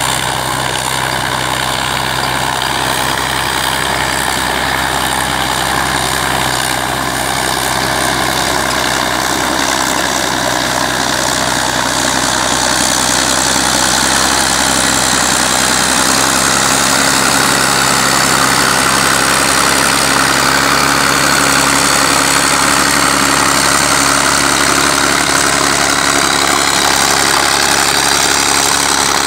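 Heavy engines of a truck-mounted rotary snowblower and a wheeled tractor pushing a snow plough, running steadily under load; the sound grows louder about halfway through as the tractor comes close.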